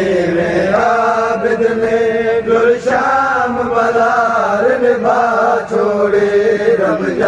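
A voice singing long, wavering melodic phrases of a repeated devotional refrain in a chanting style, over a steady low drone.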